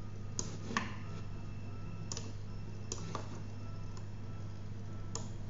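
About six sharp, irregularly spaced clicks from a computer keyboard or mouse, over a steady low hum.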